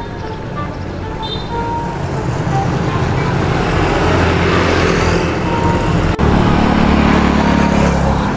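Road traffic on a highway: a passing vehicle swells and fades about halfway through, then a louder, steady low engine rumble sets in for the last two seconds.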